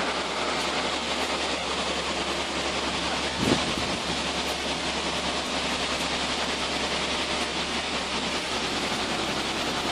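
Truck-mounted hydraulic crane's diesel engine running steadily under a continuous mechanical hiss as it holds a suspended load, with a single knock about three and a half seconds in.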